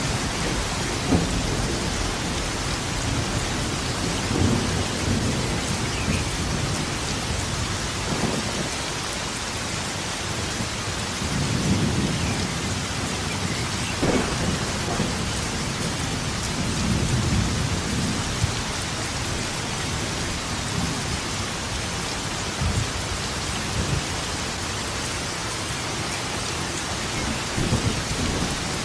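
Steady heavy rain with repeated rolls of thunder rumbling low underneath, and a few sharp cracks scattered through.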